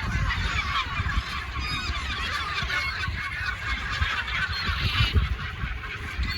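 Many gulls calling at once, a dense chorus of overlapping calls, over a low steady rumble.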